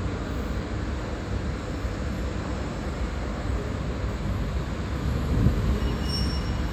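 Steady low rumble with hiss of background noise, unbroken and even throughout.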